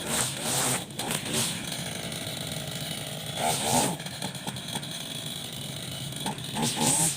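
Honda GX35 four-stroke brush cutter engine running steadily, revving up in short surges about halfway through and again near the end.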